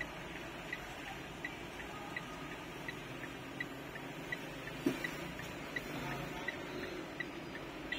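Steady, even ticking, about three short high ticks every two seconds, over a low background hum, with one soft knock about five seconds in.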